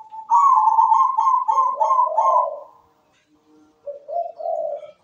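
Zebra dove (perkutut) cooing its song. A quick run of short, clipped notes comes first, then after a brief pause a few lower, rolling coos near the end.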